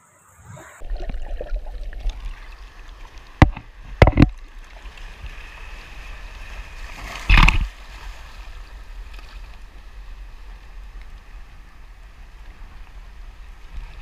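Sea waves washing and breaking over shoreline rocks, with wind rumbling on the microphone. Several loud thumps cut through about three and a half, four and seven seconds in.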